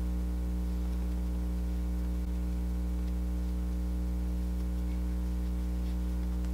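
Steady low electrical mains hum with a buzzy stack of overtones over faint hiss.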